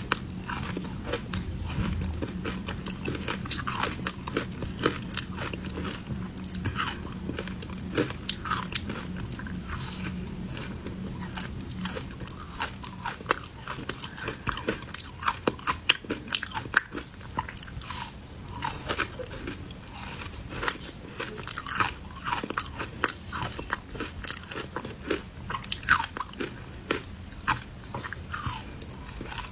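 Biting and chewing through chunks of frozen ice coated in matcha powder: repeated sharp crunches and crackles of ice breaking between the teeth, irregular and continuing throughout.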